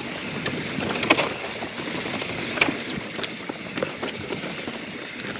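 YT Jeffsy mountain bike rattling down a rocky trail, with tyre and wind noise and repeated sharp knocks of the wheels striking rocks, the strongest about a second in and again about two and a half seconds in. The suspension is still closed from the climb, so the bike runs harsh over the rocks.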